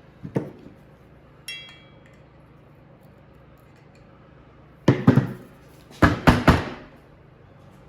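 Hard knocks and a ringing metallic clink from diesel heater burner parts being handled and knocked: a knock, a clink about a second later, then two clusters of quick sharp knocks near the end.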